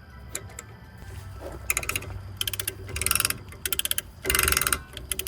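Hand socket ratchet clicking in several quick bursts, starting a little under two seconds in, as the nut on the rebuilt rear wheel hub is run down onto the spindle.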